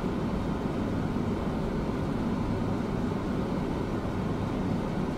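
Steady hum of a parked car's idling engine and air-conditioning blower, heard inside the cabin.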